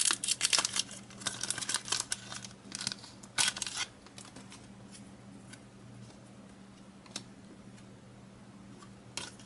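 Crinkly foil booster-pack wrapper and trading cards being handled, a flurry of small rustles and clicks for the first few seconds, then only a few faint clicks over a low steady hum.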